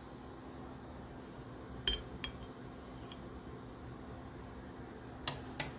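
A metal slotted spoon clinks against a saucepan and a ceramic plate as a peach is lifted and set down. There are a few sharp clinks: the loudest comes about two seconds in and a pair comes near the end, over a steady low hum.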